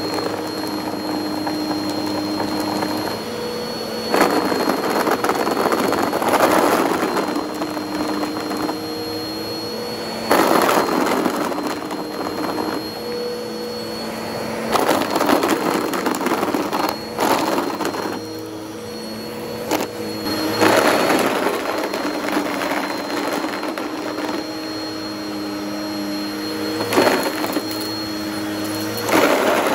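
Bissell CleanView upright vacuum running with a steady motor whine whose pitch shifts as it is pushed over carpet, broken by about six loud bursts of crunching and rattling as pencil-top eraser caps are sucked up through it.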